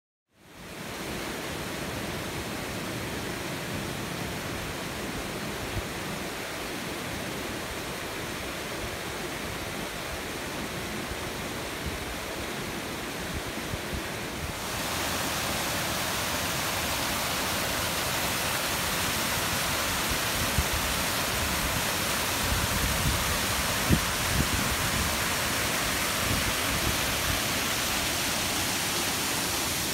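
Shallow river water rushing steadily over a concrete spillway. It fades in at the start and grows louder and brighter about halfway through.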